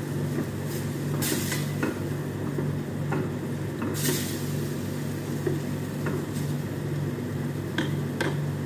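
Minced beef cooking in a stainless steel frying pan, stirred and scraped with a spatula: short scrapes and knocks against the pan, the loudest about a second in and again about four seconds in, over a light sizzle and a steady low hum.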